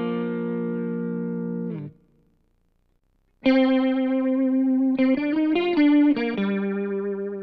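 Electric guitar played through a Line 6 Helix modeller: a held chord rings and stops about two seconds in, then after a short silence a new chorused chord passage begins, changing chords a few times before settling on a held chord.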